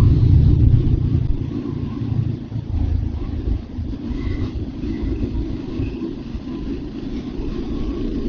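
Royal Enfield Hunter 350's single-cylinder engine running while the motorcycle is ridden, under a heavy low rumble that is loudest for the first couple of seconds and then eases off.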